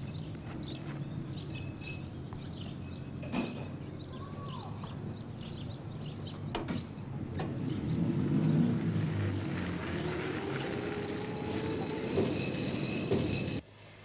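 Milk float motor running and pulling away, with a whine that rises slowly in pitch as the vehicle gets louder about halfway through, over a steady low hum and bird chirps. Two sharp clicks come earlier, and the sound cuts off abruptly just before the end.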